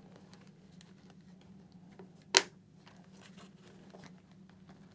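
Faint handling noise and small ticks from hands working on a Shoei GT-Air II motorcycle helmet, with one sharp click about two and a half seconds in.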